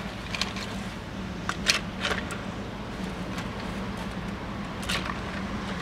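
Scattered sharp clicks and taps as small animal bones are handled and placed into a plastic tub of water, over a steady low hum.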